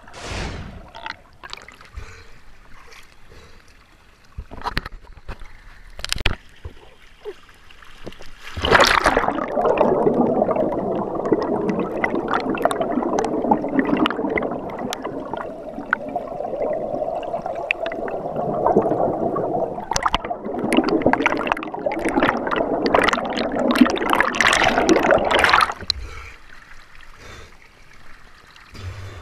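Water churning and bubbling around an underwater camera, muffled, with many small clicks and knocks in it. It starts with scattered knocks, grows into a dense rushing gurgle about nine seconds in, and drops away a few seconds before the end.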